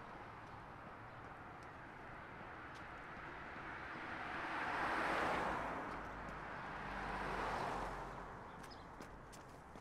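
A vehicle passing on the street: tyre and engine noise swells to a peak about five seconds in, rises again near seven and a half seconds, then fades away.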